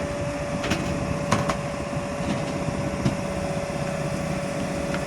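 Sany 265 excavator running as it tracks straight ahead, with a steady high whine over the engine and a few sharp clanks from the tracks and machine.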